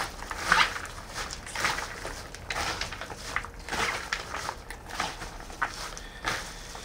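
A spoon mixing a bowl of apple salad (diced apple and celery with cream, sugar and nuts), in uneven stirring strokes, one or two a second.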